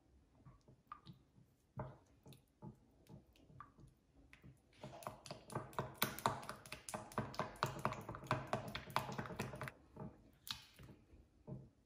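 Kitchen utensil work: a few scattered taps, then about five seconds of rapid clicking and scraping, then a few more taps.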